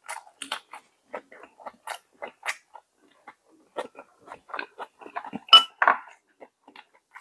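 Close-miked mouth sounds of a person eating: irregular chewing clicks and smacks, with a sharper, louder click about five and a half seconds in.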